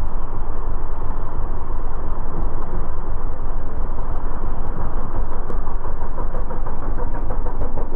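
ATV engine running as the quad pulls up out of a fast-flowing creek, over the rush and splash of the water.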